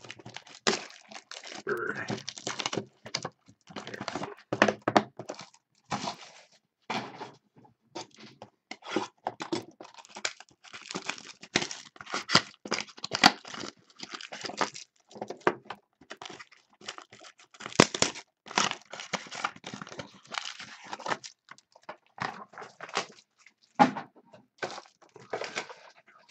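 Trading card box and pack wrappers being torn open and handled: a quick, irregular run of ripping, crinkling and rustling, with an occasional thunk.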